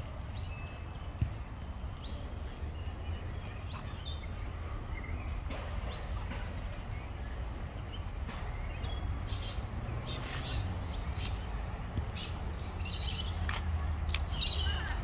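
Birds chirping with many short, high calls, busier in the last few seconds, over a steady low rumble.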